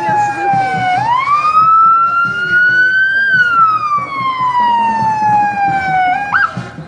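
Emergency vehicle siren wailing: its pitch falls, jumps up about a second in and climbs slowly, then slides slowly down again, with a short quick upward chirp near the end.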